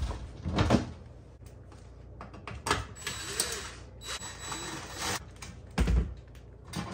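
Clunks of the oven door being handled as it is lifted off its hinges, then a cordless drill-driver whirring for about two and a half seconds as it backs out a screw from the oven frame, followed by a loud knock near the end.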